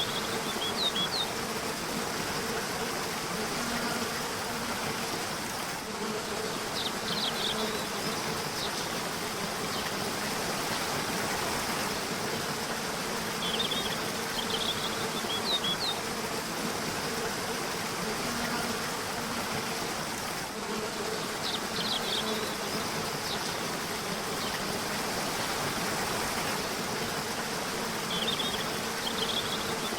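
Rushing river water running steadily. Brief clusters of bird chirps recur about every seven seconds.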